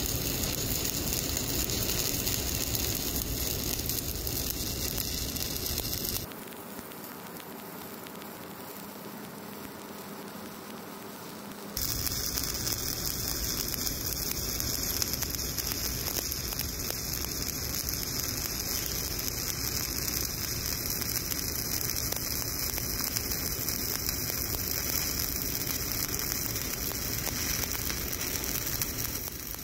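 Stick (SMAW) welding arc on a 7018 electrode, a steady crackle and sizzle as the third pass of a horizontal groove weld is run. About six seconds in the sound drops to a quieter, thinner hiss for roughly five seconds, then the full crackle resumes.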